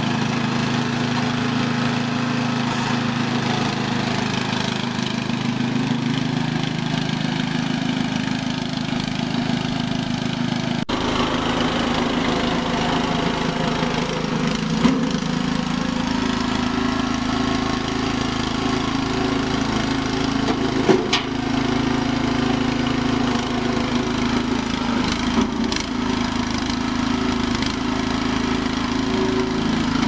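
Small petrol engine of a four-wheel-drive power barrow running steadily under load. Its note changes abruptly about a third of the way in, and a few sharp knocks come later on.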